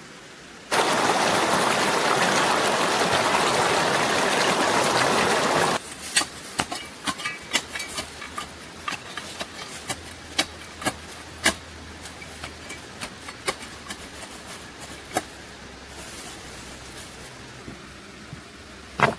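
A loud rushing noise for about five seconds that starts and stops abruptly, followed by a run of sharp clicks and knocks, with one louder knock near the end.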